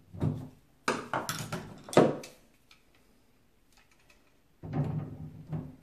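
Metal clicks and clanks of pliers working on the brass cartridge stem of a Moen shower valve that has not yet broken free, in two bursts with the sharpest knock about two seconds in.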